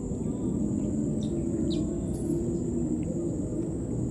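Outdoor ambience: a steady high insect buzz over a low rumble, with a few short high chirps.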